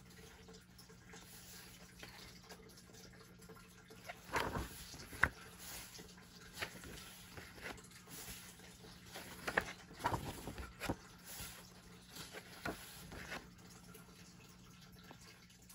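Pages of a paperback colouring book being turned and smoothed down by hand: short soft paper swishes and rustles, in a cluster about four seconds in and another around ten seconds in, over a faint steady hum.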